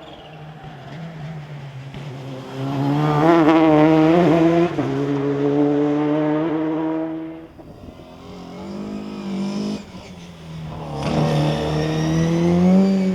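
Rally car engines at high revs on a stage: the engine note climbs and holds, cuts off sharply about seven and a half seconds in, and builds again near the end.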